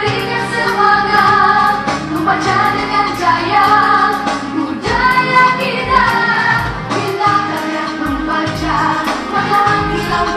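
A song with a steady beat and several voices singing.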